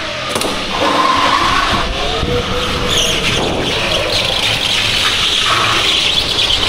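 Onboard sound of a go-kart being driven hard round an indoor track: the kart's engine running steadily, with its tyres scrubbing and squealing on the smooth, slick floor.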